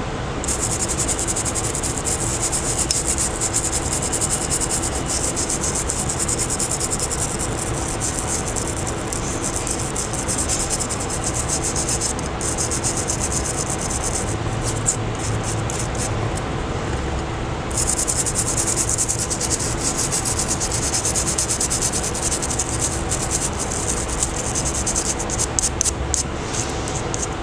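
Rapid, scratchy rubbing or brushing noise that stops briefly twice in the middle, over a steady low hum.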